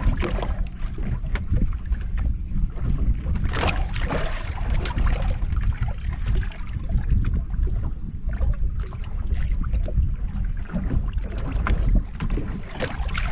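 Wind rumbling on the microphone aboard a small fishing boat on the water, with scattered small knocks and clicks throughout.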